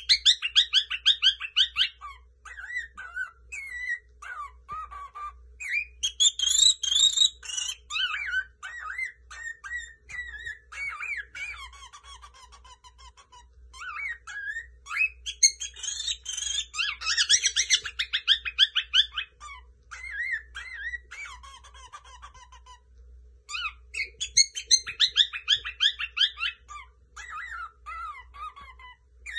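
Lutino cockatiel singing a long warbling song of rapid chirps, trills and whistles in several bursts with short pauses between them.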